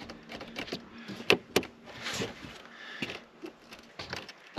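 Scattered knocks, clicks and scraping as a rooftop solar panel is rocked and pushed by hand, still held fast to the roof by its glued mounting brackets.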